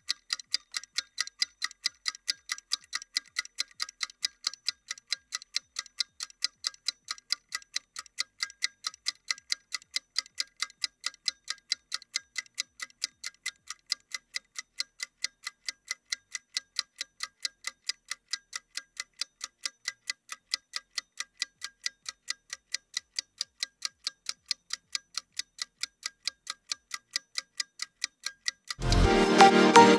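Clock-style ticking sound effect marking a rest countdown: an even run of sharp, high ticks, several a second. Electronic dance music comes back in about a second before the end.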